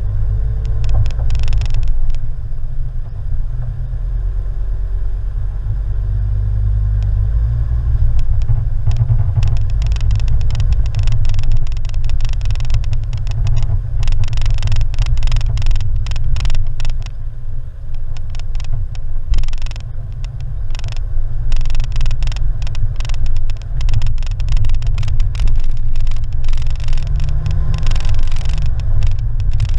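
A car driving slowly over a rough gravel and cobbled road: a heavy, steady low rumble, with the frequent crackle and clicks of stones and gravel under the tyres.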